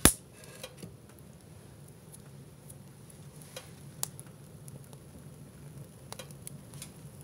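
A stick of kindling knocks once as it is set onto the fire in a wood stove, then the small kindling fire crackles with scattered sharp pops.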